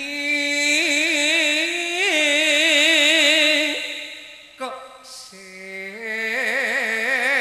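A singer of a Madurese gending holds long, drawn-out melismatic notes with wide vibrato in two phrases, with a short break just after the middle.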